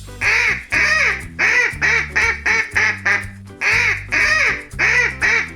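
Duck quacking over and over in quick runs of short nasal quacks, a few a second, over a children's song backing with steady bass notes.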